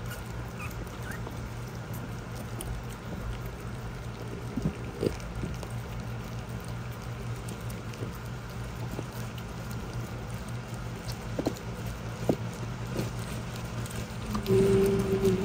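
A litter of five-week-old French bulldog puppies lapping and smacking at wet puppy mush in a stainless steel feeder bowl, with scattered small clicks over a steady low hum. A short pitched sound comes near the end.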